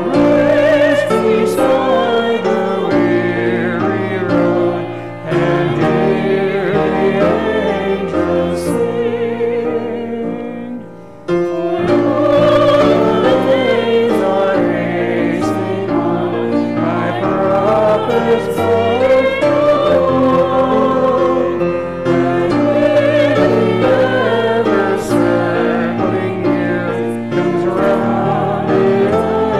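Church choir singing with grand piano accompaniment, with short breaks between phrases about five and eleven seconds in.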